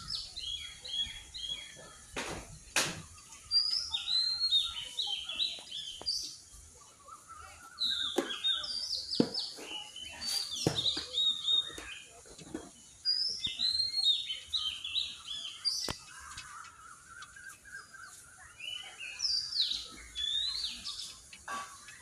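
Wild birds singing: repeated bursts of quick, falling high notes every few seconds, over a lower warbling phrase, with a few sharp knocks in between.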